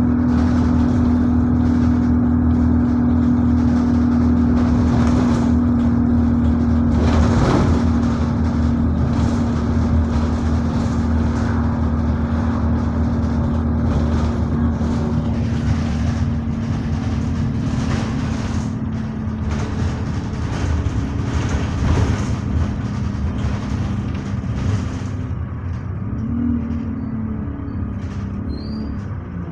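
Bus engine and drivetrain heard from inside the passenger saloon while on the move: a steady drone with a constant hum. It quietens over the last ten seconds or so, with short rattles from the bodywork throughout.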